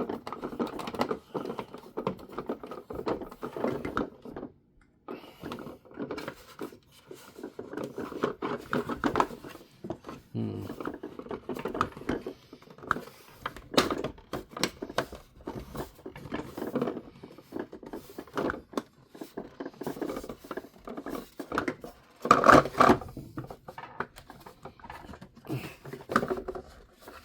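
Small screws being worked into a plastic toy car body with a hand screwdriver, with irregular clicks, scrapes and rattles of the plastic parts being handled; a louder burst of scraping comes a little after twenty seconds in.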